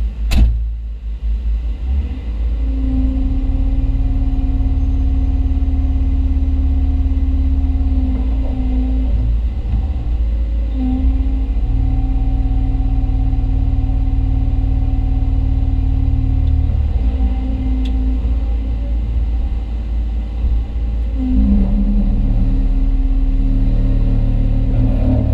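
Hyundai Robex 220-9A LC excavator's diesel engine and hydraulics running under load as it compacts a trench, heard from inside the cab: a loud, steady low rumble with a hum that drops out and comes back several times. A single sharp click about half a second in.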